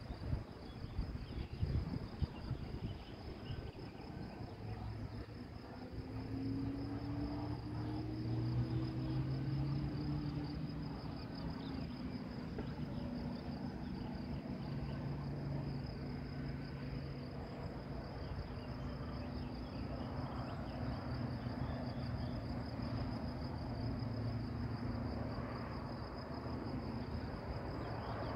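Insects chirring steadily in a high, fine, even band, with wind buffeting the microphone in gusts over the first few seconds. From about five seconds in, a low droning hum rises and wavers slowly in pitch, fading near the end.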